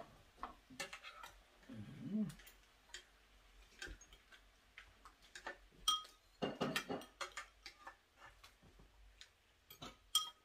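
Utensils clinking and tapping against dishes during a meal: an irregular scatter of light clicks, a couple of them ringing briefly.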